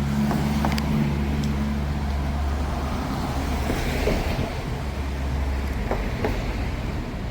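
A car engine's steady low hum with road or traffic noise. The hum fades away about six seconds in.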